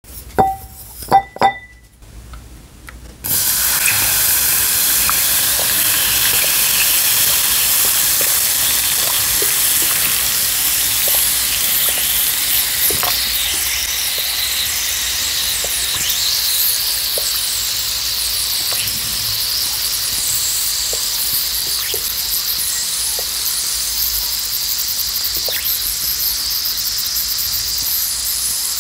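A few light taps on a glass bowl as a crumbly white block is set in, then a steady fizzing hiss with small crackles and pops that starts suddenly about three seconds in: air bubbling out of the porous block as it soaks in water.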